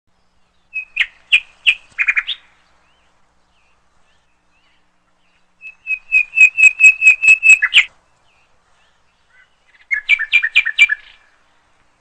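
Red-billed hornbill calling in three bouts of rapid, evenly repeated notes, the middle bout the longest at about a dozen notes.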